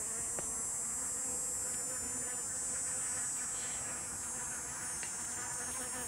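Honey bees buzzing in flight around a top bar hive's lid, a hum that wavers up and down in pitch as they come and go. Some are fighting at the lid, which the beekeeper suspects is a robbing raid by a rival colony.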